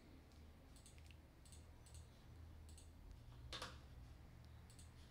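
Near silence: a low steady hum with a few faint, scattered clicks, one a little louder about three and a half seconds in.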